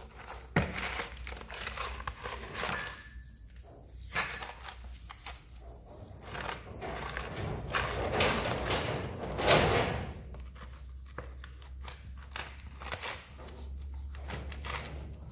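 Hands rubbing and kneading a wet spice marinade into a whole ray in a plastic basin. The wet handling noise is broken by a few sharp knocks against the basin and is loudest in a stretch of rubbing about eight to ten seconds in.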